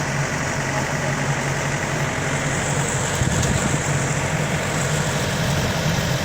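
Yanmar AW82 combine harvester's diesel engine running steadily, an even hum with no change in speed.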